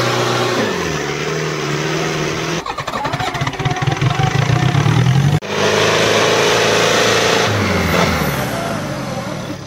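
Mahindra Arjun 605 DI tractor's diesel engine running hard under load while it pulls a disc harrow. It starts as a steady drone, turns into rapid uneven pulsing in the middle, and cuts off abruptly about halfway. The drone then resumes and falls in pitch near the end as the engine slows.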